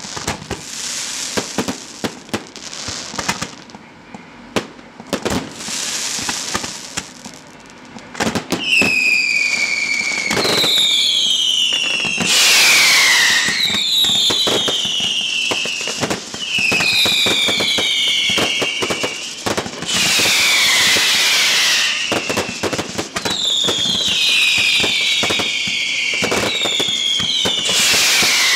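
Daylight fireworks display: a rapid run of bangs and crackle for the first several seconds, then from about eight seconds in a string of loud whistling fireworks, each whistle falling in pitch, overlapping one another over hissing and crackle.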